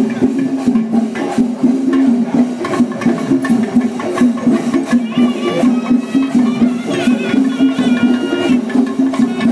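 Traditional music with quick, dense drum strokes over a steady low drone. A higher melody line comes in about five seconds in.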